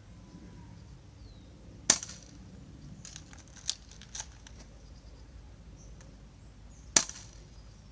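Airsoft Colt 1911 pistol firing twice, about five seconds apart, each shot a sharp snap, with a few fainter clicks in between.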